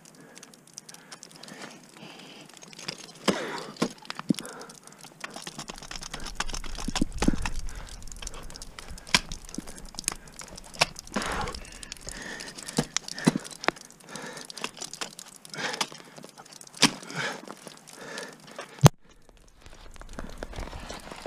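Ice tools and crampons striking hard water ice during a lead climb, in a series of sharp irregular blows with a few scraping kicks between them. The loudest blow comes near the end.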